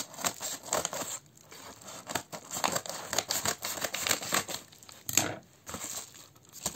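Scissors snipping through a yellow padded paper mailer in irregular cuts, with the paper crinkling and tearing as the cut envelope is pulled open.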